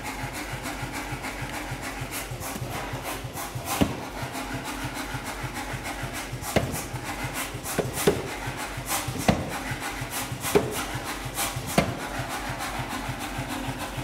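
Power hammer striking a white-hot niobium canister billet in single blows, one about every second and a half from about four seconds in, over a steady low pulsing hum. These are the first blows meant to set a forge weld in the argon-purged billet.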